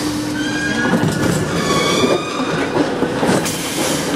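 Paris Métro line 8 train creeping to a stop at a platform. A steady hum ends just under a second in, giving way to a rattle of the cars and a thin high squeal of brakes and wheels that dies away a couple of seconds later.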